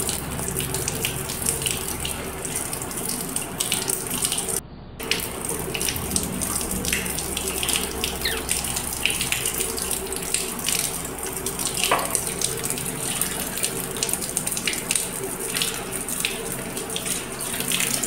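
Tap water running steadily and splashing during a pet parakeet's bath in its metal cage. It breaks off briefly about five seconds in.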